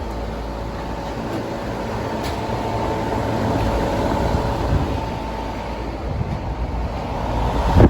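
Shop fan with a four-speed motor running on low speed: a steady rush of air with a faint steady hum, and a few faint clicks.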